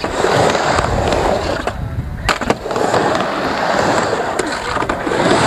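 Skateboard wheels rolling and grinding on a ramp, a steady rough rumble, with two sharp clacks of the board about two seconds in.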